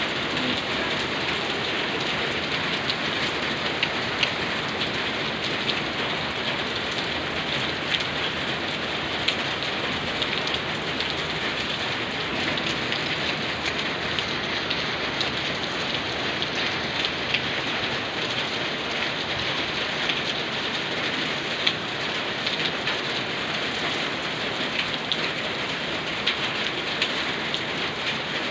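Steady rain falling: an even hiss scattered with many sharp little drop ticks.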